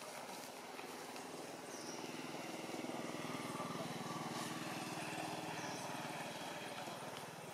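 Engine of a passing motor vehicle, growing louder about two seconds in and fading away before the end.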